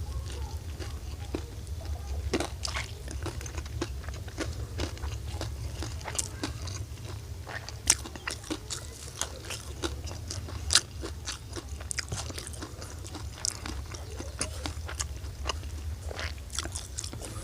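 A person chewing and biting crunchy food close to the microphone: steady crackly crunching with many sharp clicks, and two louder snaps about eight and eleven seconds in. A steady low hum runs underneath.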